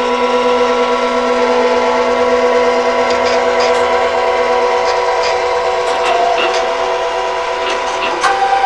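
Printer and scanner mechanisms running: a stepper-motor whine in several steady pitches at once, with a few light clicks. The lowest tone drops out about halfway through, and a new, louder tone comes in near the end.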